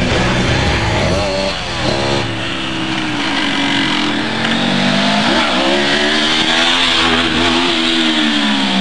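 Motorcycle engine running close by, its pitch swinging up and down as it revs. It climbs from about halfway through, then falls away near the end.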